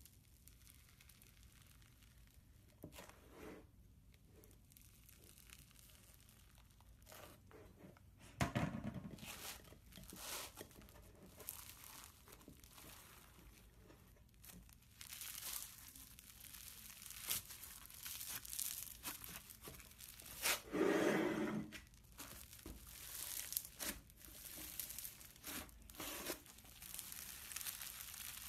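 Foam-bead slime (floam) crackling and crunching as hands squeeze and pull it apart, in irregular bursts that begin about eight seconds in.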